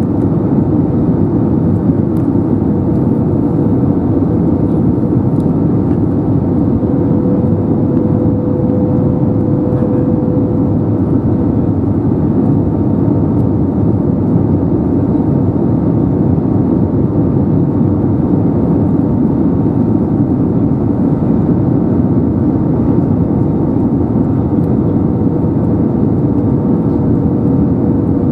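Steady cabin noise of an Airbus A320neo in flight, heard from a window seat over the wing: an even rush of airflow and engine sound from its Pratt & Whitney PW1100G geared turbofans, with a faint steady hum running through it.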